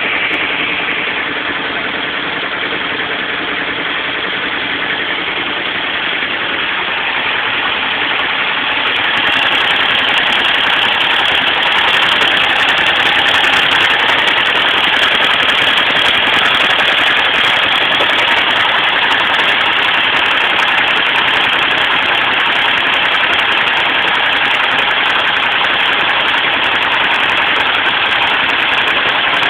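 Kawasaki ER-5 motorcycle's parallel-twin engine running steadily, growing somewhat louder about nine seconds in and then holding.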